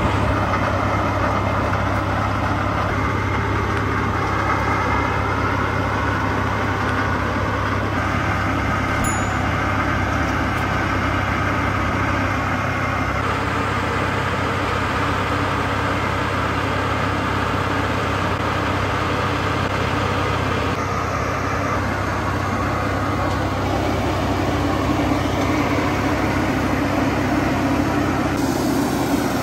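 A tracked forestry carrier's YaMZ-238D V8 diesel engine running steadily at an even speed, with a constant low drone.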